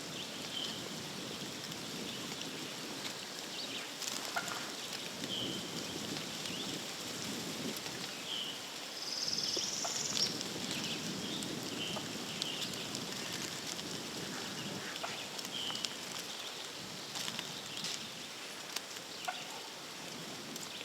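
Quiet woodland ambience with a small bird repeating short chirps every couple of seconds and a brief higher twitter about halfway through, over a soft rustling background.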